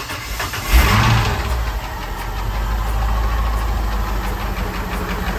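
MerCruiser 8.1 Horizon big-block V8 marine engine cranking, catching about a second in with a flare of revs, then idling rough with a rattle and a miss. The rattle and miss are the sign of the #1 piston damaged by detonation.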